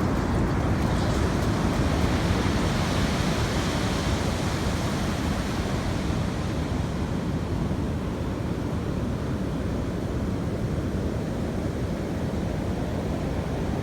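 Large ocean waves breaking on the shore, a steady deep rumble of surf with a hiss of white water that is strongest in the first few seconds and then eases a little.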